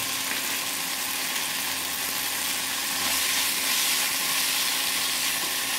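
Parboiled green peas and diced carrots frying in a pan with a little oil: a steady sizzle, a little louder about three seconds in as they are stirred.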